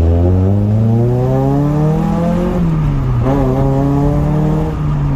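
Honda Prelude's H22A 2.2-litre VTEC inline-four, breathing through a Skunk2 cat-back exhaust, pulling hard with its note climbing steadily. The pitch drops at a gear change about two and a half seconds in, climbs and holds again, then falls as the driver eases off near the end.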